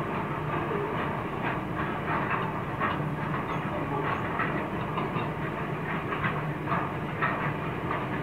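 NR and 81 class diesel-electric locomotives hauling a loaded steel train: a steady low engine drone under an irregular run of clicks and clacks from the wagons' wheels over the rail joints.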